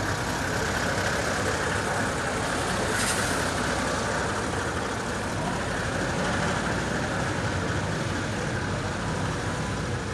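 Magirus-Deutz truck's air-cooled Deutz diesel engine running steadily at low speed as the truck creeps through a narrow gate.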